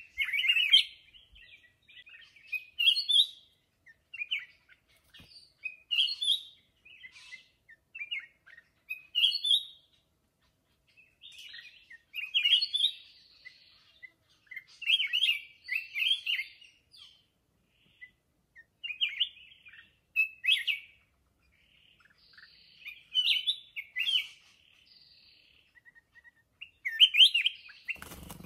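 Black-crested bulbul singing short, warbling song phrases, repeated every two to three seconds.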